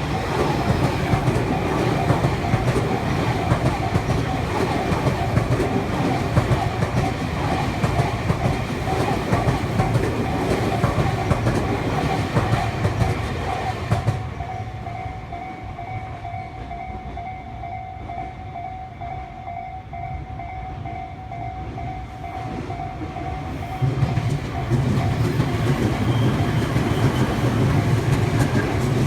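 Electric commuter trains passing a Japanese level crossing, wheels clattering over the rail joints, while the crossing's warning bell rings on in a steady repeating two-tone pattern. The train noise drops away about halfway, leaving the bell clearer, and another train comes through a few seconds before the end.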